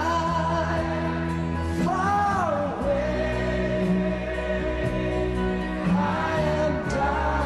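Background music: singing voices over held chords, with a few sung phrases rising and falling.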